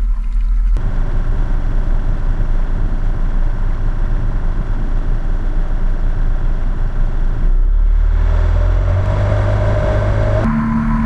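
Outboard motor of a small Gheenoe skiff running at speed, with the rush of wind and water as the boat travels. The sound shifts abruptly about a second in and twice near the end, and a steadier engine note comes through in the last few seconds.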